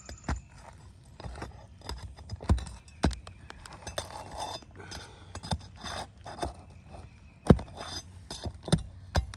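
Roofing hand tools, a roof hatchet and a shingle-removal bar, tapping, clinking and scraping against asphalt shingles and roofing nails as the nails are worked loose, with a few sharper knocks among the light taps.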